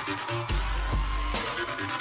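Electronic dance music with a deep bass coming in about half a second in, and sharp beat hits.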